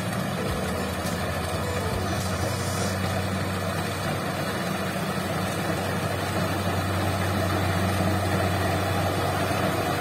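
Rice combine harvester's engine running steadily with a constant low hum as the machine works along the field.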